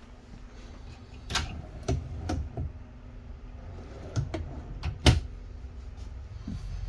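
A run of sharp clicks and knocks, about eight in two clusters, the loudest a little after five seconds in.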